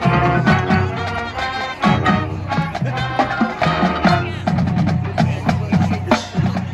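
High school marching band playing its field show: wind instruments hold chords over frequent drum strikes from the percussion section.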